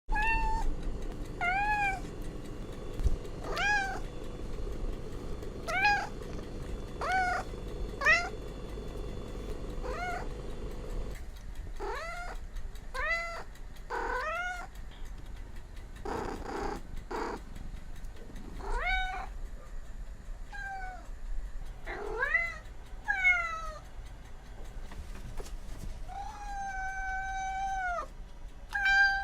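Domestic cats meowing over and over, short rising-and-falling meows about every second or two, with one long drawn-out meow near the end.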